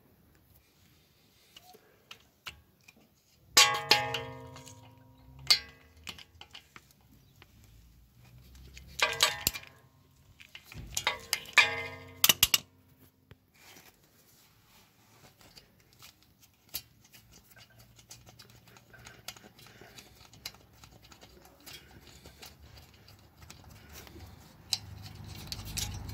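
Metal tools clanking and ringing: a sharp ringing clank about four seconds in, a lighter one near six, then a cluster of clanks between about nine and twelve seconds, with quiet handling noise in between.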